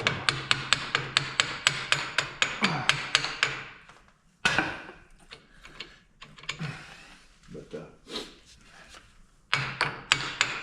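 Rapid, evenly spaced metal clicks, about five a second, from hand-tool work on a tractor pulley puller. They stop about four seconds in, followed by a sharp knock and a few scattered clinks, and the even clicking starts again near the end.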